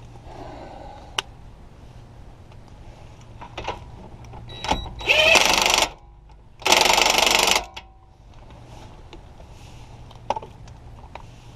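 Ryobi cordless impact wrench hammering on a suspension nut in two bursts of about a second each, with metal tools clinking now and then.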